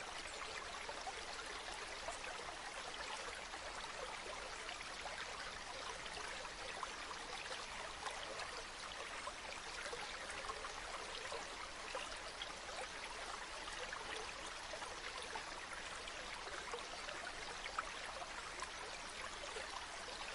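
Running water flowing and trickling steadily, with many small quick splashes and bubbles, like a small stream.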